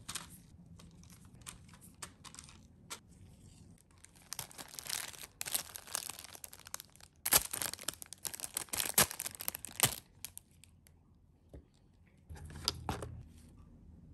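Plastic packaging crinkling and tearing as a packet is handled and opened, with a few sharp crackles in the middle and another short rustle near the end.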